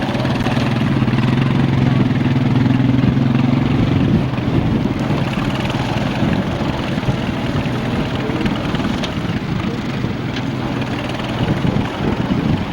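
Tractor engine running close by, with a steady note for the first few seconds before it turns rougher and noisier.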